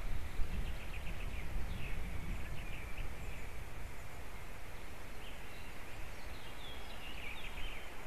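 Wind rumbling on the microphone of a treetop nest camera, with faint high bird chirps in short series, one from about half a second to three seconds in and another near the end.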